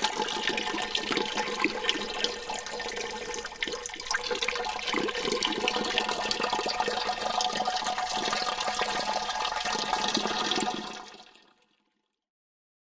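Water dripping with echo, many drops close together forming a dense, continuous watery texture, processed to sound low and compressed. It fades out about eleven seconds in.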